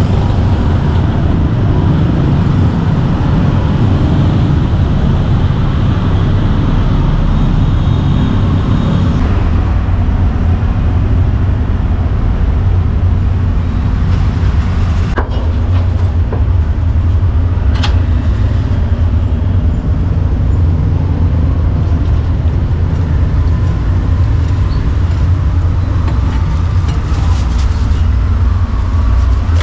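Busy street traffic: scooter, motorbike and car engines running steadily in a dense rumble, with a few sharp clicks in the second half.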